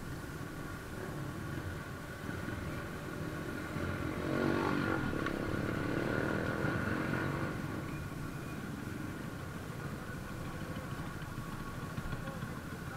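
Motorcycle engines heard from on board a moving motorcycle in a group ride, over road and wind noise. About four seconds in the engines get louder as the bikes around accelerate, then they settle back to a steadier lower run as the group slows to a stop.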